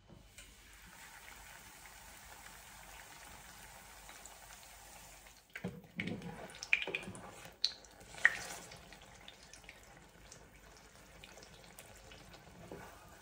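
Tortilla frying in shallow oil in a nonstick pan, a steady hiss of sizzling oil. From about six to eight and a half seconds in, a cluster of knocks and scrapes from slotted spatulas turning and pressing it in the pan.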